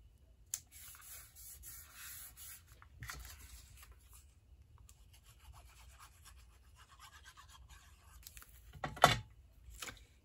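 Paper being rubbed and pressed down by hand on a craft table, with light rustling and scraping. A single sharp knock about nine seconds in is the loudest sound.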